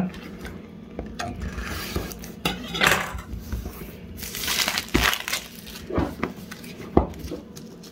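Cardboard product box being handled and opened, the inner box sliding out of its sleeve with rustling, scraping hisses. A few sharp knocks of the box against the table come about a second apart near the end.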